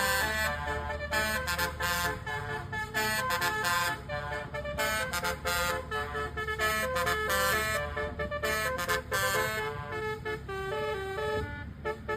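Bus basuri 'telolet' horn, a multi-trumpet horn, playing a tune of short held notes that step up and down in pitch several times a second.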